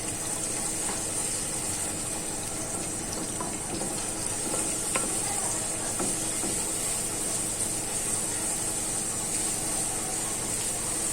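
Minced garlic sizzling as it fries, a steady hiss with a few light knocks along the way.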